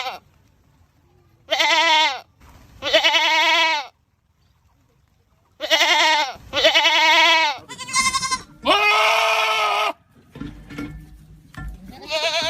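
Goats screaming: a string of about six loud, drawn-out bleats, each around a second long, then a short lull and one more near the end.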